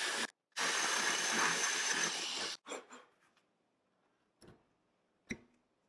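Cordless drill running into a stacked slate stone wall: a brief burst, then a steady two-second run that stops. A couple of light knocks follow near the end.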